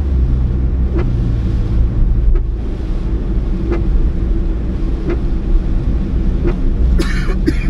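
Car driving, heard from inside the cabin: steady engine and road rumble with a soft knock about every 1.3 seconds, and a short rustle near the end.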